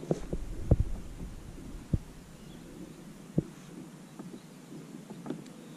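A few dull, low thumps over a faint steady background, the sharpest three spaced about a second and a half apart.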